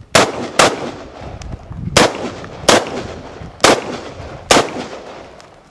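Six close gunshots fired in three quick pairs, each with a short echo, as a shooter engages targets on a timed IDPA stage.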